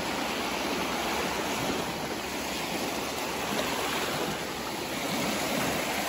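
Small lake waves washing in over a pebble beach: a steady rush of surf that eases slightly and swells again.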